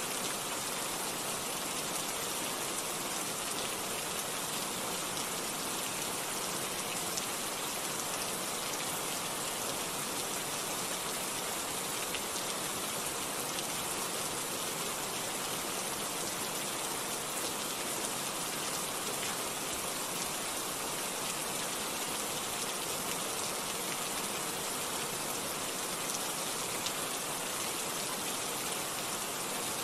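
Steady rain falling: an even hiss that holds at one level throughout.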